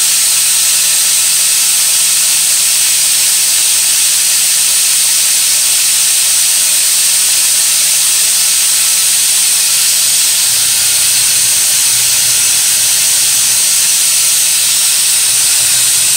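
Compressed air hissing loudly and steadily as it is blown through a small homemade Tesla turbine generator. A faint low hum runs beneath it and grows stronger about ten seconds in.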